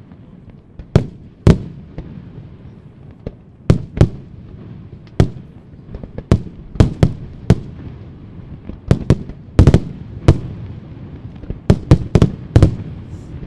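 Aerial firework shells bursting in a steady barrage: sharp booms one after another at uneven gaps, sometimes two or three within a second, over a low rumble.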